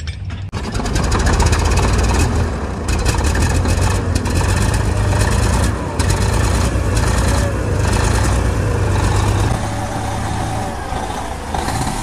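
Bulldozer's diesel engine running loudly. It comes up sharply about half a second in and eases off a little near the end.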